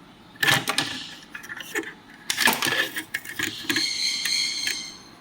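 Metal parts of a bass amplifier's chassis clinking and rattling as it is handled, with a short metallic ring near the end.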